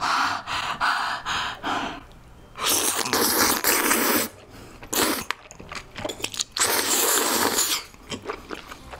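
Slurping of jjajang (black bean sauce) noodles: a quick run of short slurps, then two long, loud slurps about three and seven seconds in, with soft chewing clicks near the end.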